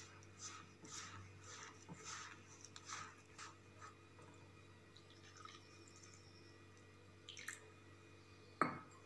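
Fingers squishing and rubbing damp flour-and-semolina dough in a steel bowl, a soft stroke about twice a second for the first few seconds, then fainter. A sharper knock comes near the end.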